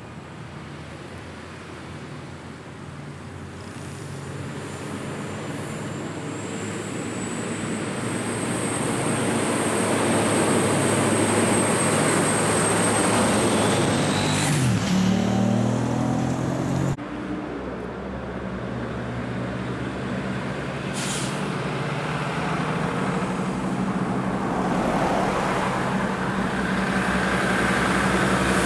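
Heavy diesel trucks climbing a steep highway. A truck-and-trailer's engine grows louder as it nears and drops in pitch as it passes close by, and another truck's engine then builds steadily. Two brief hisses of air cut through.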